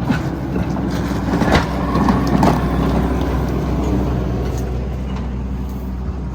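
An engine running steadily, with a few knocks and clatters in the first two and a half seconds.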